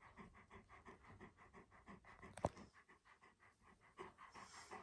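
Alaskan malamute panting softly and fast, about five breaths a second, with a single sharp click about two and a half seconds in.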